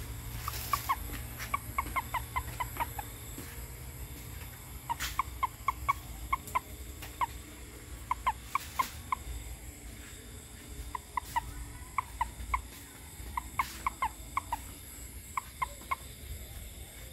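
Frogs calling: runs of short, sharp clucking notes, about three or four a second, with a new run every few seconds, over a low steady hum.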